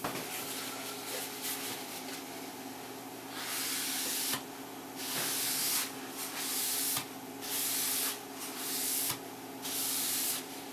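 Folded paper towel rubbing over a dyed curly maple veneer board, wiping in an oil finish: about five hissing strokes, each under a second, in the second half, with fainter rubbing before them.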